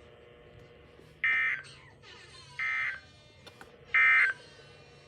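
Three short buzzy EAS digital data bursts (SAME tones), each about a third of a second long and about a second and a half apart, the second one quieter. This is the end-of-message code that closes an emergency alert broadcast.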